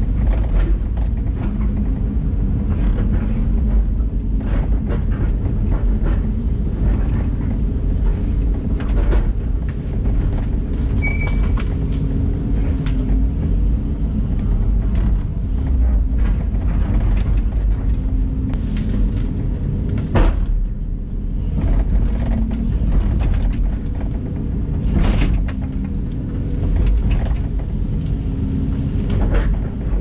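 LiuGong excavator's diesel engine running steadily, heard from inside the cab, as the boom and bucket work through brush. Several sharp knocks and cracks stand out over the engine, the loudest about two-thirds of the way through.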